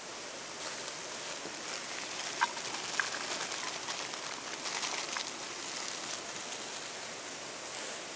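Edamame pods tumbling out of a crinkling plastic bag into a small metal pan, with two sharp clinks of pods on metal about two and a half and three seconds in. Steady rush of a river underneath.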